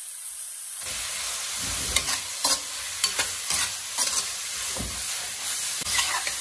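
Zucchini strips stir-frying in a hot wok: a steady sizzle, with a metal ladle scraping and clacking against the pan every half second or so as the vegetables are tossed.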